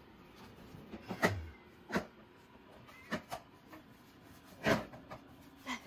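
Irregular sharp knocks and rattles of a wire pet cage as a flying squirrel and a kitten clamber about in it, about six in all, the loudest a little over a second in and again near the end.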